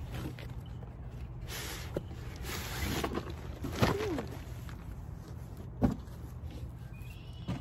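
Cardboard rustling and scraping as a box sleeve is pulled off a bagged pop-up tent, with two knocks, about four and six seconds in, as the tent bag tips onto the grass and the cardboard is handled. A steady low hum runs underneath.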